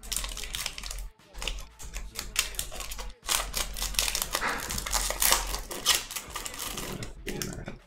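Foil wrapper of a Panini trading-card pack crinkling and crackling as it is peeled and torn open by hand. It is a dense run of fast crackles that breaks off briefly about a second in and again about three seconds in.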